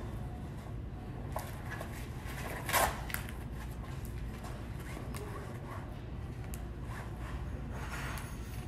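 Handling noises from a black fitness waist belt being wrapped on and fastened, with a brief louder scratchy noise about three seconds in, over a steady low hum.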